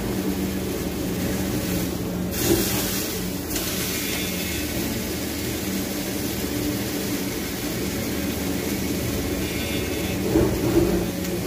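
Marlin steaks frying in a stainless steel pan, a steady sizzle over a low hum, with a louder burst of sizzling about two seconds in. Metal tongs click twice against the pan near the end as the steaks are turned.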